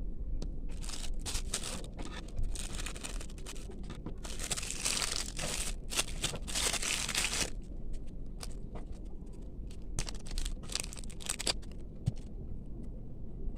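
A small blind-bag packet being torn open and crinkled by hand. There is a dense spell of tearing and crinkling in the middle, then scattered short crinkles.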